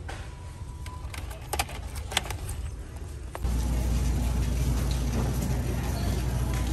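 Shopping cart being pushed across a store floor: a steady low rumble from its rolling wheels that starts abruptly a little over three seconds in, after a few sharp clicks.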